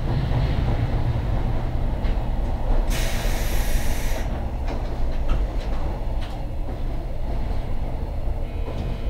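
Long freight train of container wagons running past on the next track: a steady low rumble, with sharp clicks of the wheels over the rail joints. About three seconds in comes a burst of hissing that lasts a second and a half.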